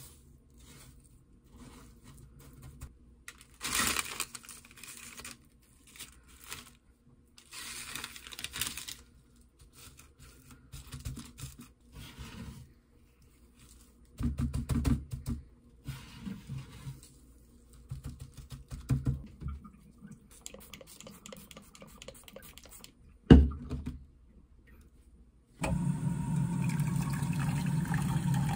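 Hands working a large pork cutlet through flour, egg and breadcrumbs: scattered soft rustling and squishing. One sharp knock about 23 seconds in, then water poured from an electric kettle into a saucepan, a steady splashing fill for the last few seconds.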